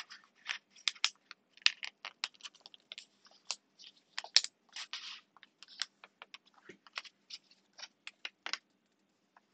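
A sheet of paper being folded and creased by hand, its flap pushed back into a pocket: irregular crisp crackles and short rustles, a few of them sharper.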